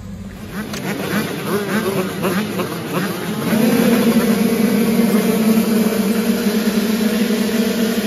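Motocross bike engines revving, their pitch rising and falling over and over, then a steady, held engine note from about three and a half seconds in.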